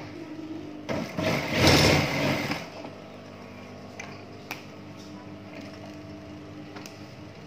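JUKI industrial sewing machine running a short burst of stitching about a second in, lasting about a second and a half. A few light clicks follow as the fabric is handled at the machine, over a steady faint hum from the machine's motor.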